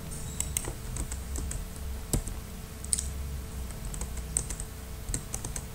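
Irregular clicking of computer keys being typed on, several clicks a second, over a steady low hum.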